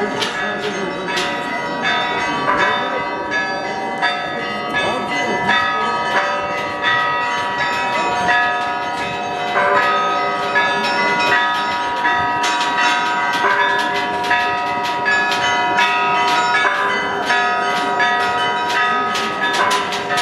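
Church bells ringing, many strikes in quick succession with their tones ringing on, over a crowd's chatter.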